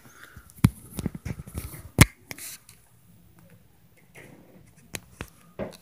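Irregular thuds and knocks of stomping from the apartment upstairs: two heavy thuds about a second apart near the start with smaller knocks between them, and a few lighter knocks near the end.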